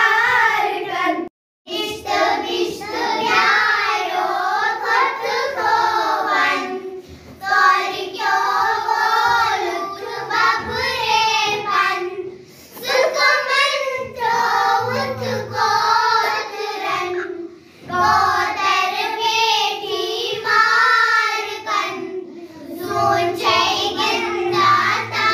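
A group of children singing a Kashmiri children's rhyme about a cat together in unison. The singing breaks off briefly about a second and a half in, and again about halfway through, where the boys' voices give way to a group of girls.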